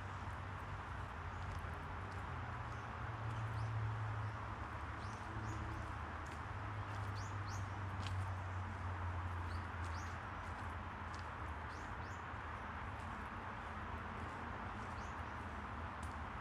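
Park ambience: a steady low rumble and hiss, with small birds giving short, high, falling chirps again and again.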